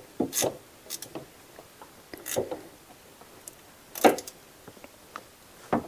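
Irregular metallic clicks and knocks of hand tools on a bolt being run in and tightened on a power steering pump mount, a few sharp ones a second or two apart.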